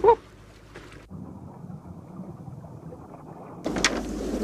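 Wind and water noise around a boat at sea, after a brief voice sound at the start. About a second in, the sound cuts abruptly to a dull, muffled rumble with all the high sound gone. Near the end it cuts back to louder wind and water noise with a few sharp knocks.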